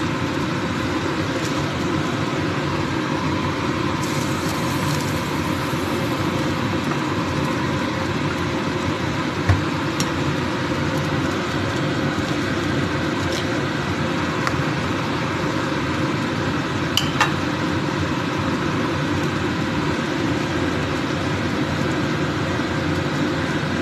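Pot of vegetable soup at a rolling boil, a steady bubbling rumble, with a few light clicks of a metal ladle against the pot as leaves are pushed into the broth.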